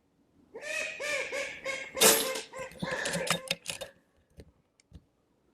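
A woman laughing in a run of short breathy bursts, with a few faint clicks near the end.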